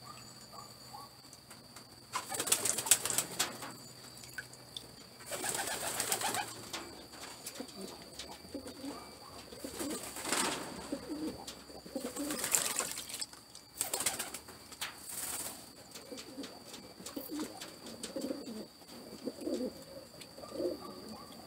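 Water splashing in a bucket in about five short bursts as a pigeon is held and dunked in a bath, with pigeons cooing in between.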